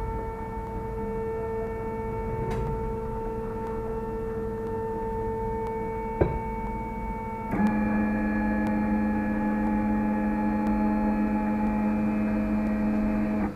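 A Flashforge 3D printer's stepper motors give a steady pitched whine as the build plate rises and the print head moves. There is a single click a little after halfway, and then the whine drops to a lower, louder hum as the motion changes.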